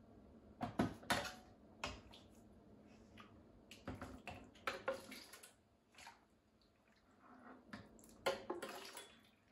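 Soaked recaudo ingredients (chiles, rice, bread, tomatoes) handled in their soaking water: a series of wet splashes, drips and squishes, with a few sharp clicks from a utensil or container about a second in and again near the end.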